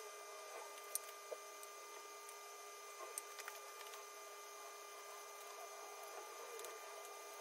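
Quiet workshop room tone with a faint steady hum, broken by a few light clicks and soft rustling as gloved hands handle and lay fiberglass cloth on a plastic hydrofoil wing.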